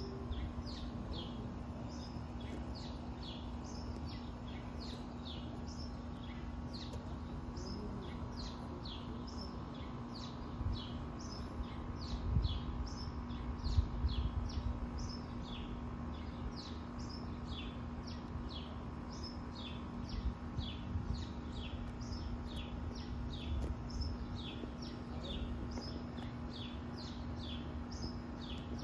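Small birds chirping steadily in the background, a quick run of short falling chirps, over a steady low hum. A few low bumps near the middle are the loudest sounds.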